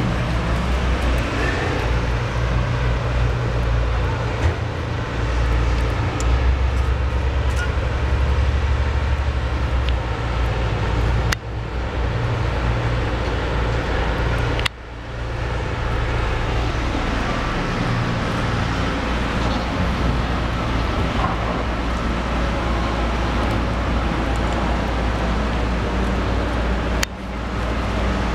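Steady low engine rumble of nearby traffic or machinery, with a few abrupt breaks.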